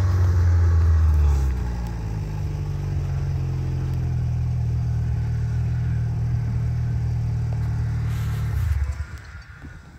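Snowmobile engine running at a steady low pitch, a little louder for the first second or so, then dropping away sharply near the end.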